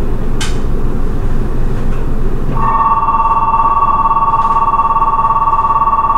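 Electronic chime melody in sustained two-note tones, starting a little over two and a half seconds in, over the low steady rumble of a stopped subway train.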